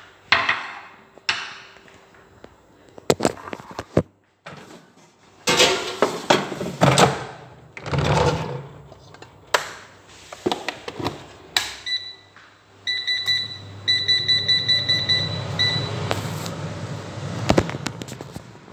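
Kitchen handling noises: knocks, clicks and clatter, with bursts of rustling as things are moved about and cupboards are reached into. A little past the middle, a high electronic beep sounds several times in quick succession over a low steady hum.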